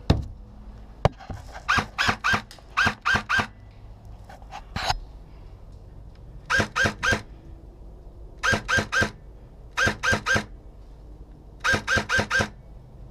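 Airsoft guns firing short rapid strings of three or four shots each, six strings in all, with a couple of single sharp clicks in the first second.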